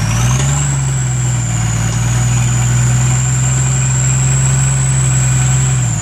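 Nissan Patrol's 4.2-litre turbo engine held at steady raised revs, with a thin, high turbo whistle. The whistle climbs as the revs come up in the first half-second, holds level, and starts to fall as the revs drop right at the end.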